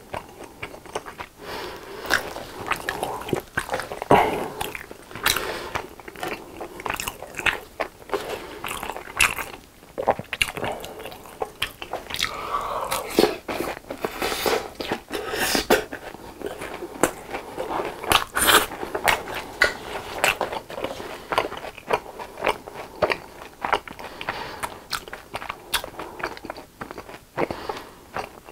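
Close-miked chewing and biting of BHC fried cheese balls: an irregular stream of crunches and crackles from the fried crust as they are chewed.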